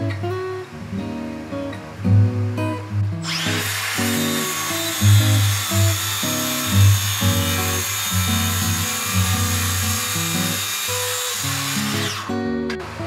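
Acoustic guitar background music throughout. From about three seconds in, a handheld circular saw runs and cuts for about nine seconds, a loud high-pitched hiss and whine that stops abruptly near the end.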